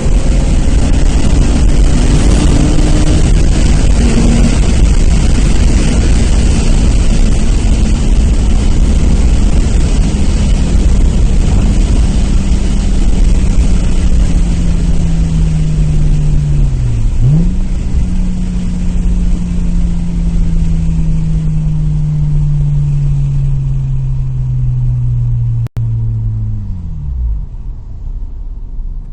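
Nissan Maxima's VQ35 V6 engine and road noise while the car is driven and slows down. The engine note falls steadily, dips and jumps back up once about halfway through, then drops away fast near the end as the heavy road and wind hiss fades.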